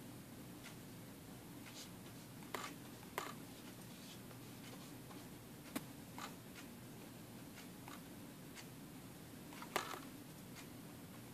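A few short, faint taps of a fingertip on a tablet's glass touchscreen, scattered over several seconds, over a steady low room hum.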